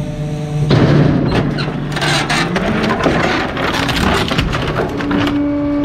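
Bulk-waste truck running with its hydraulics working as bulky trash is crushed and broken in the load. A dense crackling and splintering clatter starts about a second in, over the engine hum, which rises in pitch under load.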